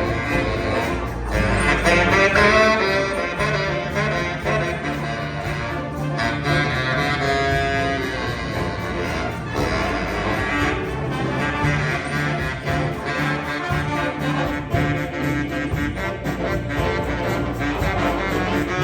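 Saxophone quartet of alto, two tenors and baritone, backed by bass guitar and piano, playing a jazz piece.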